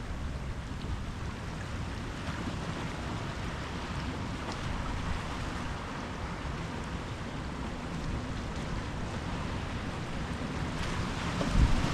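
Ocean surf washing in and out as a steady rush of water. Near the end, wind gusts buffet the microphone.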